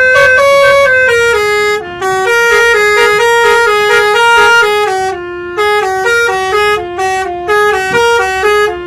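A bus's Basuri V3 multi-tone telolet horn playing a fast melody, its notes stepping up and down several times a second, in short phrases with brief gaps between them.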